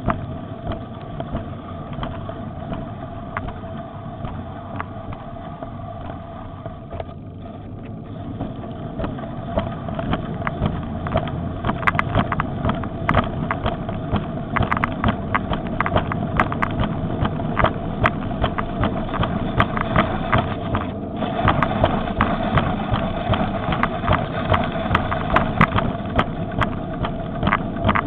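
Riding an electric bicycle on a paved road: a steady electric-motor hum with wind rumbling on the microphone and frequent light rattles, all getting louder about ten seconds in.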